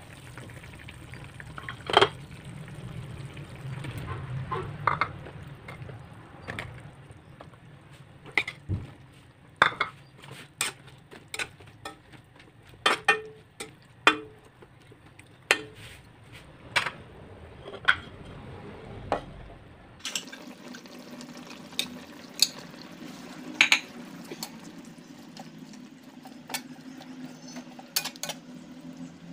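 Metal spatula stirring vegetables in a simmering sauce in a steel wok, with many sharp clinks and scrapes of the spatula against the pan.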